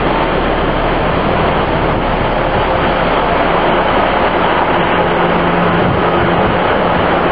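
Northern Rail diesel multiple unit moving along the station platform, its underfloor diesel engines and wheels on the rails making a loud, steady running noise.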